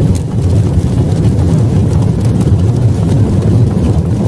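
Deep, steady rumble of a logo-intro sound effect accompanying an animated smoke burst, with no voice or tune.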